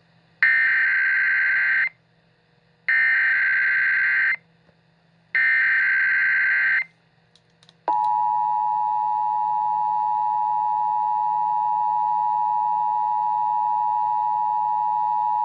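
Emergency Alert System tones: three short bursts of SAME header data, each about a second and a half long, then, about eight seconds in, the steady two-tone EAS attention signal (853 and 960 Hz) starts and holds.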